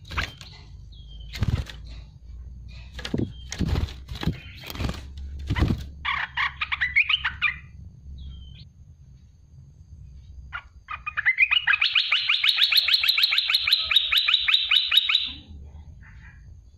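Olive-winged bulbul calling: a short burst of chirps, then a long rapid-fire series of loud notes lasting about four seconds, the 'tembakan' burst that bird-keepers use as a master call. Before the calls there are several sharp thumps.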